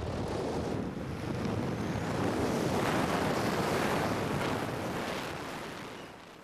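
Wind rushing over a falling camera's microphone during a BASE jump freefall from a cliff: a steady roar that builds over the first few seconds and dies down near the end.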